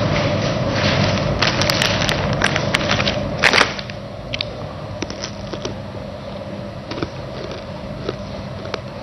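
Clattering and sharp knocks of things being handled and set down on a table, loudest about three and a half seconds in, over a steady rushing noise that drops right after it; a few scattered light clicks follow.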